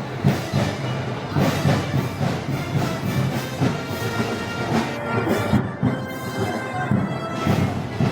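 A festival brass band playing, with sustained brass notes over steady drum beats.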